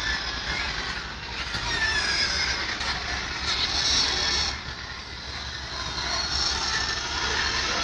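Steady low rumble of heavy trucks queued on a dirt road, with short high-pitched sounds scattered over it.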